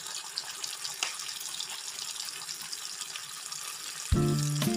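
Spice paste frying in hot oil in a kadai, a steady soft sizzle on low heat while the masala is cooked down with salt and turmeric. Background music comes in near the end.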